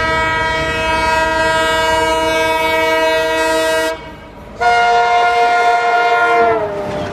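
ALCo diesel locomotive's multi-tone air horn sounding two blasts: a long one of about four seconds, then after a short break a second of about two seconds whose pitch sags as it cuts off. Low rail running rumble lies underneath.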